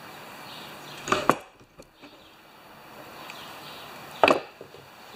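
Sharp wooden knocks from handling on a workbench: a quick double knock about a second in and a single knock about four seconds in, over a faint steady hiss.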